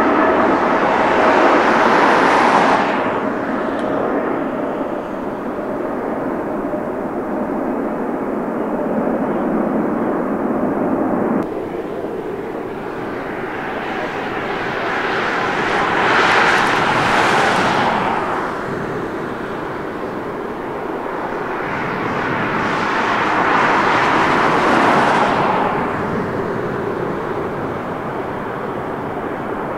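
Large jet airliner engines running, a steady noise that swells and fades three times, loudest near the start, about sixteen seconds in and about twenty-four seconds in. A faint steady whine sits in the noise at the start, and the sound changes abruptly about eleven seconds in.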